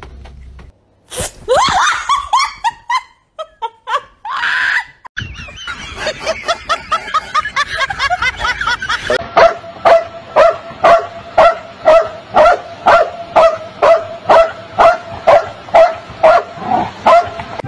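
A dog barking: a few short yelping calls at first, then a long run of steady, evenly spaced barks, about two a second.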